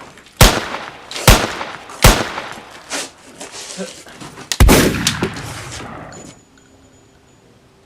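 Gunshot sound effects: three sharp shots a little under a second apart, a weaker one, then a louder blast about four and a half seconds in whose echo dies away over a second and a half.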